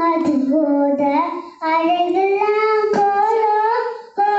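A young girl singing into a handheld microphone, holding long notes, with short breaks for breath about a second and a half in and again near the end.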